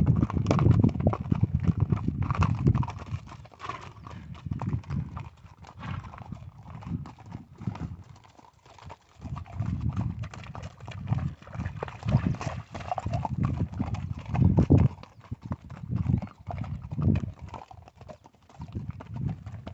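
Horse's hooves clip-clopping at a walk on a dirt and gravel road, with scattered gritty crunches and a few louder low rumbles along the way.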